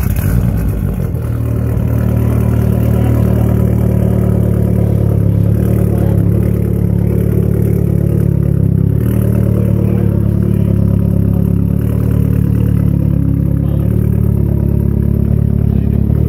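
Turbocharged 2.4-litre four-cylinder of a Dodge Neon SRT-4 catching right at the start and settling into a steady idle, heard through a 3-inch 304 stainless turbo downpipe-back exhaust.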